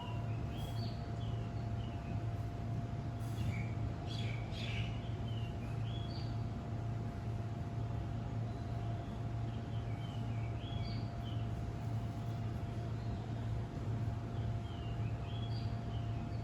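A bird singing short phrases of quick up-and-down chirps, repeated four times, over a steady low mechanical hum with a faint steady whine.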